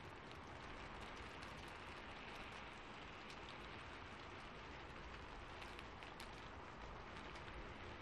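Steady, faint rain hiss with many small sharp ticks scattered through it.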